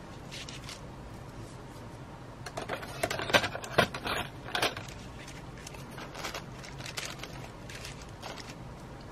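A run of light clicks and taps of craft supplies being handled and set down on a work table, busiest from about two and a half to five seconds in, over a faint steady hum.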